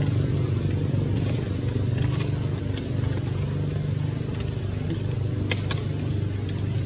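A steady low engine hum runs throughout, with a few faint sharp clicks about two, three and five and a half seconds in.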